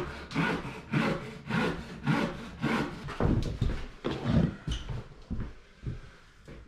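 Handsaw cutting a softwood timber batten, steady back-and-forth strokes about two a second. About three seconds in the sawing stops, giving way to irregular wooden knocks and scrapes of boards being handled.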